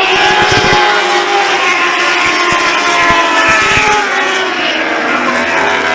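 Several lightning sprint race cars running in a pack, high-revving engines overlapping, with pitches rising and falling as they pass. There are a few dull thumps near the start and in the middle.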